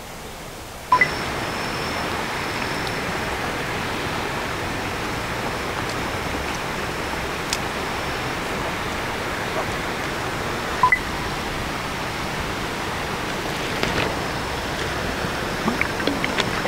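Steady rushing outdoor noise with two short high beeps about ten seconds apart and a few small clicks near the end.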